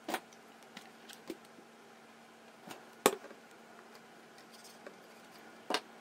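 Small metal parts and a tool clicking against a record player's turntable mechanism as they are handled and fitted: a few sharp separate clicks, the loudest about three seconds in and another near the end, over a faint steady hum.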